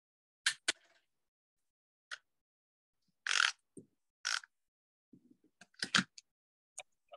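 Cardstock paper pieces being handled and pressed together: a series of short, scratchy paper rustles and scrapes, about eight in all, with a soft knock on the table about six seconds in.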